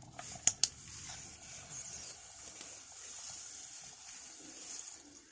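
A plastic bottle melting against a hot iron pan over a wood fire: two sharp crackles about half a second in, then a steady high hiss of the softening plastic and the fire.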